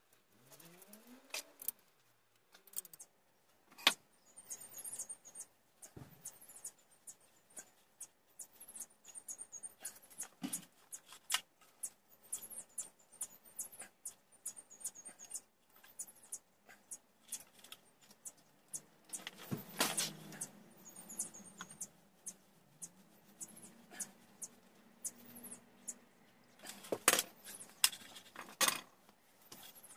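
Irregular small clicks, taps and rattles of hands working on an electric motor's wiring: wire leads, plastic connectors and hand tools being handled and set down, with a few louder knocks, the loudest near the end.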